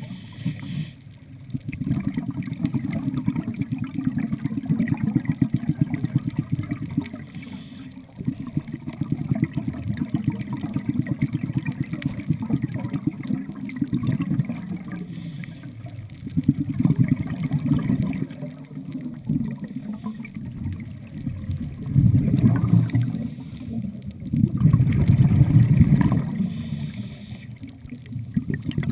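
Underwater ambience: a low, crackly rumbling and gurgling water noise that swells and fades, with two louder surges near the end.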